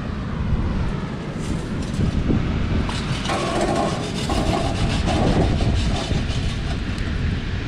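Metal scraping and clattering as a charcoal barbecue is worked, raking the hot coals, with a few short metallic squeaks in the middle, over a steady rumble of wind on the microphone.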